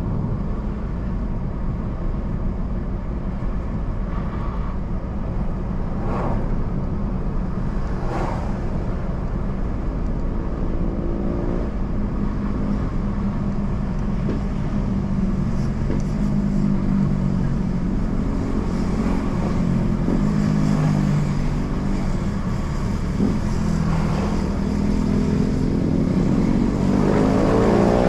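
Car engine and road noise while driving. The engine pitch rises and falls with speed, and climbs near the end as the car accelerates. There are a couple of brief sharp noises about a quarter of the way in.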